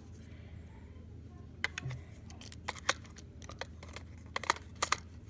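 Hard plastic toy parts clicking and tapping as the Chicken Little wind-up figure is fitted into its plastic ball: a scattering of sharp clicks starting a little under two seconds in, a few of them in quick pairs.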